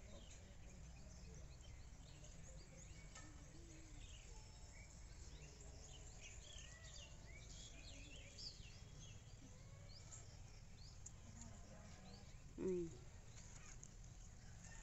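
Faint, scattered bird chirps and calls over low outdoor background noise. A person makes a brief vocal sound about three-quarters of the way through.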